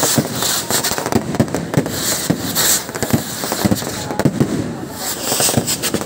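Fireworks going off non-stop at close range: irregular sharp bangs and cracks, several a second, over a hissing crackle of rockets and spark fountains.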